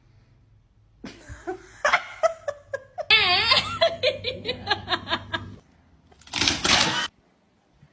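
A person laughing hard in a rapid run of high, wavering ha-ha bursts that fade out, followed near the end by a short, loud, noisy burst.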